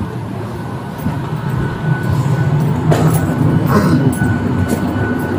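Steady low rumble of an airliner cabin's air and machinery, growing louder about two seconds in, with a few light clicks near the middle.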